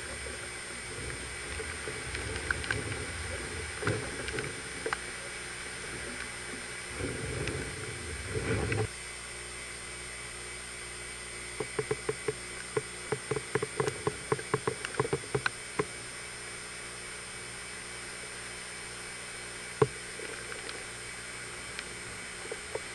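Hurricane-force wind gusting against a camcorder microphone, a low rumble that rises and falls and cuts off suddenly about nine seconds in. A steady hiss stays underneath, and a quick run of sharp ticks comes a few seconds later, with one more tick near the end.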